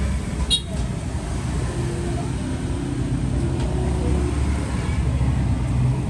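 Steady low rumble of road traffic, with one short sharp high click about half a second in.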